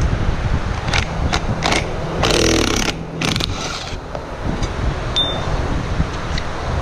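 DeWalt cordless impact driver with a socket, backing out the bolts that hold the steel pipe at the front of the cow stalls. It runs in short spells, loudest about two and three seconds in, with a few sharp clicks, over a steady low hum.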